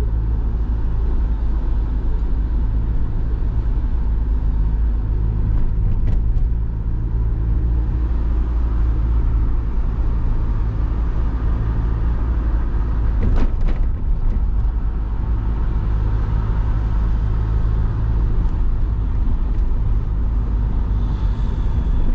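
Car driving in city traffic: a steady low rumble of engine and road noise, with a brief sharp knock past the middle.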